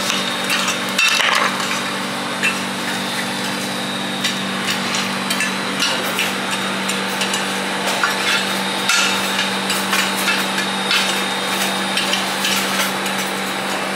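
A knife cutting through an onion and knocking on a cutting board, then scattered knocks and clatter of kitchen tools, over a steady mechanical hum.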